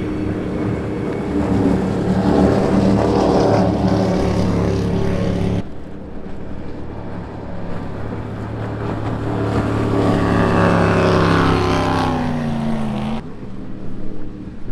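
Performance powerboat engines running at speed as boats pass one after another, swelling as they approach. About four-fifths of the way through, one engine's pitch drops as it goes by. The sound breaks off abruptly twice, once about midway and once near the end.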